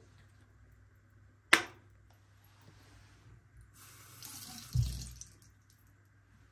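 A sharp click about a second and a half in, then a tap running briefly into a sink for about a second, with a low thump partway through.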